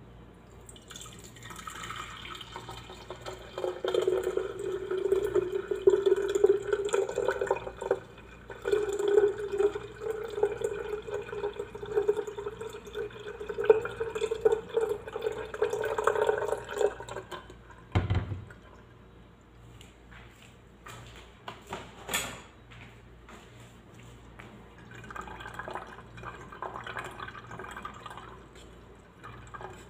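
Blended lemon and mint juice pouring in a stream through a fine-mesh strainer into a glass pitcher, splashing and trickling for over half the clip. A single low knock a little past halfway, then softer trickling and dripping near the end as the pulp is pressed in the strainer with a spoon.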